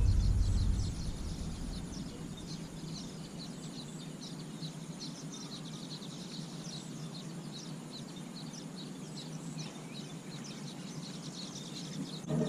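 Outdoor rural ambience with many short, high chirps of small birds going on throughout, over a steady low background hum; a deep rumble fades out in the first second.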